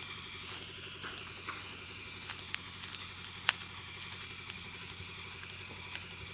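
Band saw mill's motor running steadily with a low, fast-pulsing hum, with scattered sharp clicks and knocks over it, the loudest about three and a half seconds in.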